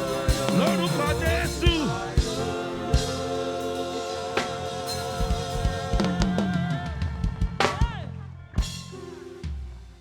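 Live gospel band music: drum kit strokes under sustained chords, with wavering sung vocal runs in the first two seconds. It winds down near the end with a few last drum hits and a held chord fading out.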